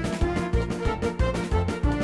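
Background music with a steady, bouncy beat and keyboard melody.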